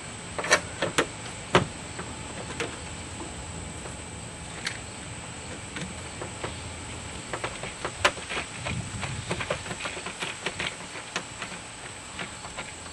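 Sharp metallic clicks and taps of a hand tool with a T27 Torx bit and latch screws being fitted into a car door: three loud clicks in the first two seconds, then a run of quicker, lighter clicks from about seven seconds in, over a steady faint hiss.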